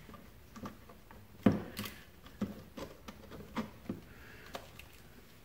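Razor blade scraping the burrs from a freshly drilled hole in a plastic watertight box: a series of light, irregular clicks and scrapes.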